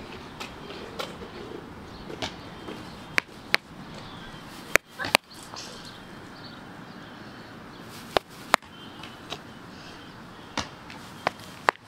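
Scattered sharp clicks and knocks, each very short, over a steady background hiss.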